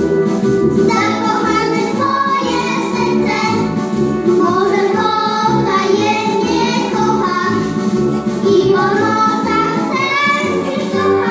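A group of young girls singing a song together to their own violin accompaniment, amplified through stage microphones.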